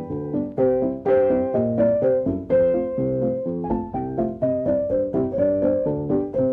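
Background piano music: a light melody over chords, several notes struck each second.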